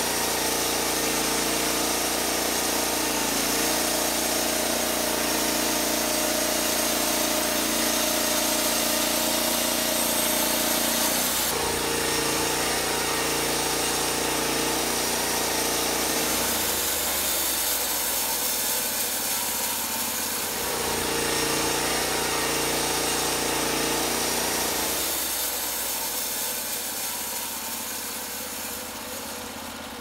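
Norwood LumberPro HD36 portable bandsaw mill at work: the engine drones steadily while the band blade hisses through the log. The sound shifts abruptly several times and fades out near the end.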